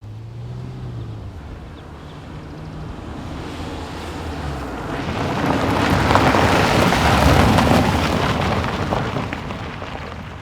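A vehicle passing by: a low rumble that swells to its loudest about seven seconds in, then fades away.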